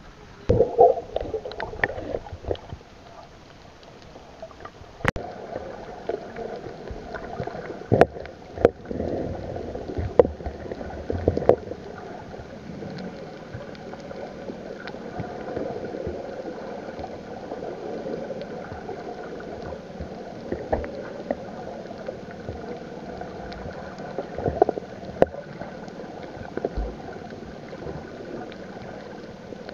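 Water heard underwater through a camera: muffled gurgling and bubbling with scattered sharp knocks and clicks in the first half, then a steadier muffled wash of water with a few clicks.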